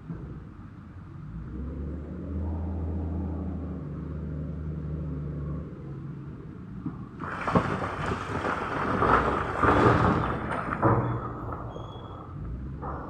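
Heavy construction machine's engine running steadily, then from about seven seconds in a loud, rough stretch of clatter and knocks for about four seconds before it settles back to a lower rumble.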